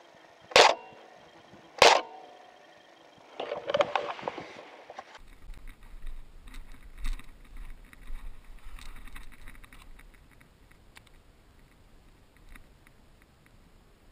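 Two sharp shots from an upgraded A&K SR25 airsoft electric gun, about a second and a quarter apart. Then a brief handling rustle, and after a cut, faint rustling and ticks of movement through forest undergrowth over a low rumble.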